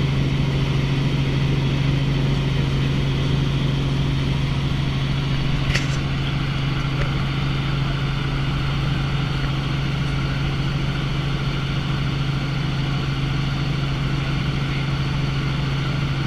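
Helicopter cabin noise in flight: a steady, unchanging drone with a constant hiss over it, and one brief click about six seconds in.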